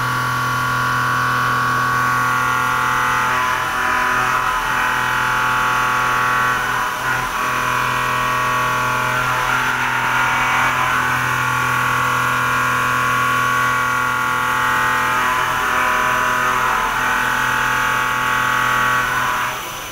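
CNC vertical milling machine end-milling a steel plate under flood coolant: a steady high-pitched cutting tone over the machine's hum, changing every few seconds as the tool moves through the cut. Right at the end the cutting tone drops away sharply, leaving the quieter machine running.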